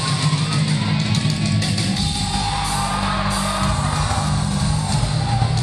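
Loud rock music with singing, played over the speakers of a large hall.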